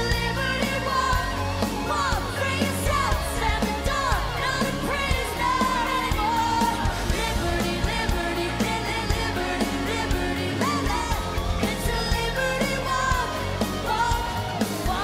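Live pop-rock performance: a woman singing lead into a handheld microphone over a band of electric guitars, bass and drums.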